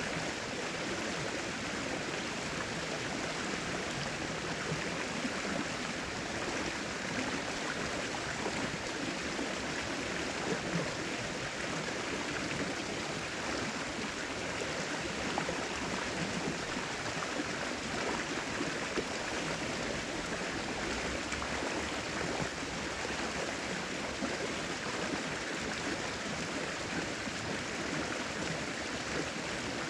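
Steady rushing of flowing river water, an even wash of sound without breaks or distinct splashes.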